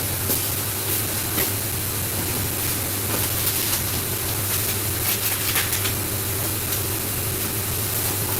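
Steady hiss from the cooking, over a constant low hum, with a few faint clicks.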